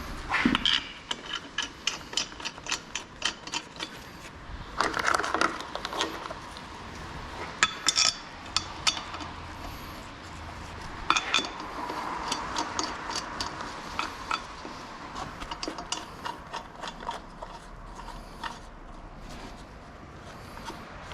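Metal hand tools and brake parts clinking and knocking during a car's front brake job: a scattered series of sharp clicks and knocks, with a few louder clusters.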